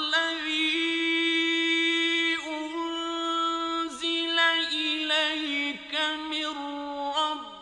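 Quran recitation in the melodic mujawwad style: a man's high, sustained voice drawing out long notes with fine ornamental wavers. The pitch steps down slightly about two and a half seconds in, breaks off briefly near four seconds, then continues in shorter ornamented phrases.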